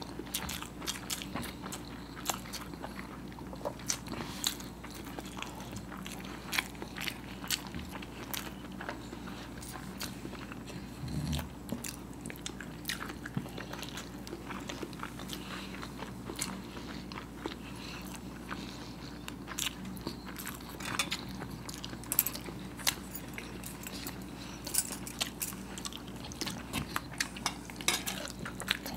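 Two people biting into and chewing peeled hard-boiled eggs coated in Schezwan sauce, with many irregular short, wet mouth clicks.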